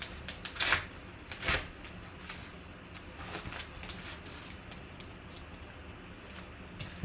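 A padded paper mailer being torn open and rustled, with two louder tearing bursts in the first two seconds, then softer crinkling and light clicks as cards in plastic toploaders slide out.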